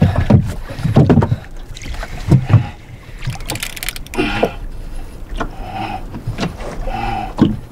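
Water slapping against the hull of a small wooden boat, with irregular low knocks and thumps and a brief hiss about three and a half seconds in.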